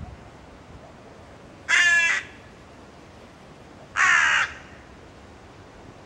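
A young crow calling: two harsh caws, each about half a second long, about two seconds apart.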